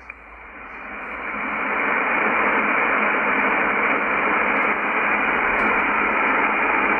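Yaesu FTdx10 shortwave receiver hissing with band noise on an empty single-sideband air traffic control channel between transmissions. The hiss swells over the first couple of seconds, then holds steady.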